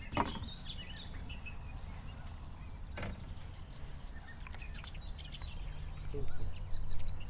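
Birds chirping outdoors over a steady low background hum, with one short click about three seconds in.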